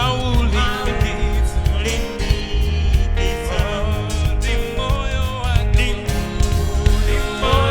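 Live gospel worship band playing with voices singing over it, carried by a heavy bass and regular drum hits.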